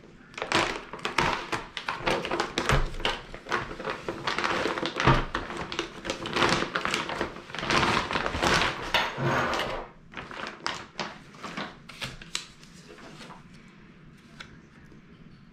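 Thin clear plastic bag crinkling and rustling as a heavy coil of coaxial cable is worked out of it, with a couple of dull thuds among the crackles. After about ten seconds it thins out to a few scattered crackles.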